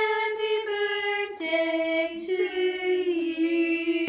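A high voice singing a few long held notes, each lasting a second or more, stepping down in pitch.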